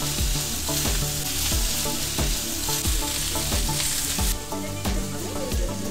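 Chorizo and arepas sizzling on a hot flat griddle, a dense steady hiss that stops abruptly about four seconds in.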